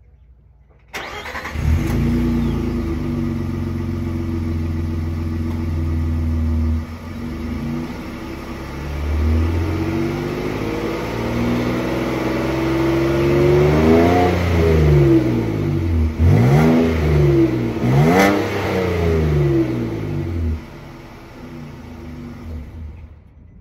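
2020 Nissan Frontier's 3.8-litre V6 through its factory exhaust, heard at the tailpipe. It starts about a second in and idles steadily. It is then revved up several times in the second half, each blip rising and falling in pitch. It settles back to a quieter idle near the end.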